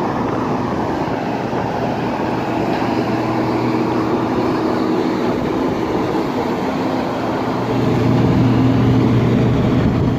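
Steady mechanical hum and air rush of a parked Airbus A320neo before engine start, typical of the auxiliary power unit and cabin air conditioning running. The hum grows louder about eight seconds in.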